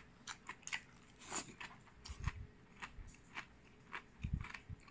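A person chewing a mouthful of cold jellyfish and cucumber salad with the mouth closed, giving a run of short, crisp crunches. There are two low thumps, about two seconds in and about four seconds in.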